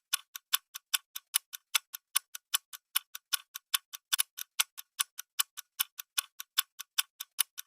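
Clock-tick sound effect counting down a quiz round's timer: quick, even ticks, about five a second.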